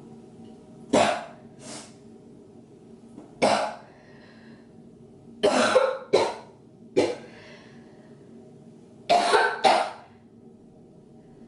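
A woman coughing hard in short bouts, about eight coughs over ten seconds. The coughing is put on, to fake coughing up blood.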